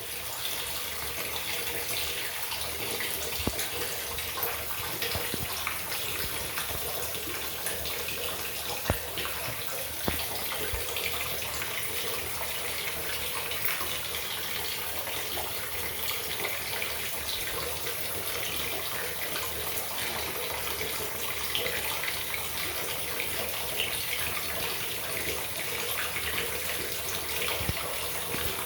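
Water running steadily from a tap, filling a Schluter shower pan for a flood test of its waterproofing, with a few faint clicks.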